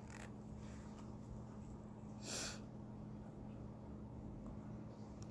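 One short breath through the nose, a sniff, about two seconds in, over a faint steady low hum.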